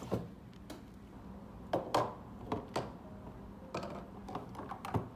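Small plastic bottles and other items knocking and clicking as they are lifted out of a desk drawer and set down on a wooden desktop: a series of light, irregularly spaced knocks.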